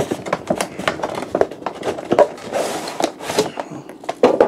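Stiff clear plastic action-figure packaging being handled, giving irregular crackles, clicks and scrapes, with a louder cluster near the end.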